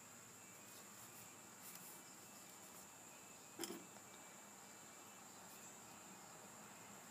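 Near silence: room tone with a faint steady high-pitched whine, and a single soft knock about three and a half seconds in.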